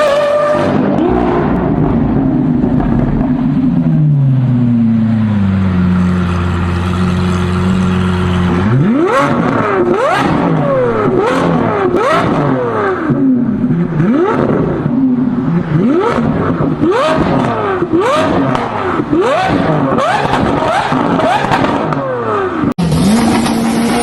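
Tuned performance car engine. It winds down to a steady low note, then is blipped hard again and again, about ten quick revs, with sharp exhaust pops as each rev falls away. Near the end it cuts to another engine running at a steady pitch.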